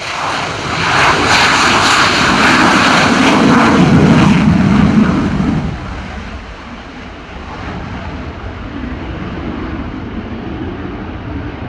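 HAL Tejas fighter jet taking off at full power with afterburner. The engine noise is loud for about the first five seconds, then drops to a quieter, steady noise as the jet climbs away.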